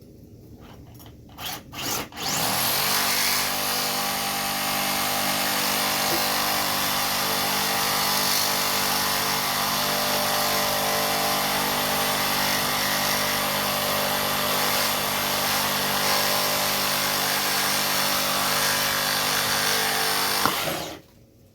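DeWalt reciprocating saw fitted with a Milwaukee blade, running steadily at an even pitch as it cuts through coach screws. A few knocks come first, then the saw starts about two seconds in, runs for about eighteen seconds and stops abruptly near the end.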